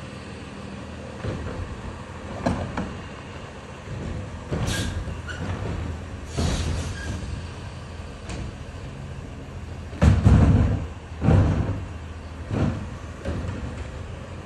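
Automated side-loading garbage truck working a street: its diesel engine running steadily, with short hisses of air and loud low surges from the truck about ten and eleven seconds in.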